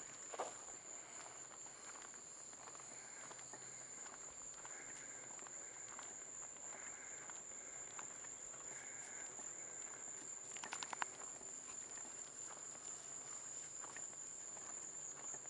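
A steady, high-pitched chorus of insects, most likely crickets, with soft footsteps on a road. Near the end comes a brief quick rattle of clicks.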